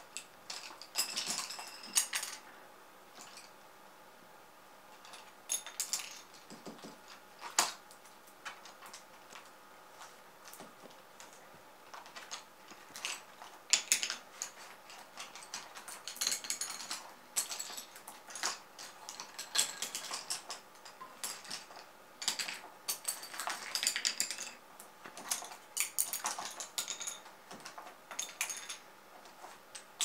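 Pencils and paintbrushes clattering on a wooden parquet floor as a hooded crow pulls them out of a fabric pencil case with its beak and drops them. Irregular bursts of light clicks, taps and rattles with short pauses between them, and one sharper knock about a quarter of the way through.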